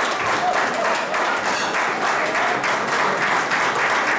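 A roomful of people applauding, many hands clapping steadily.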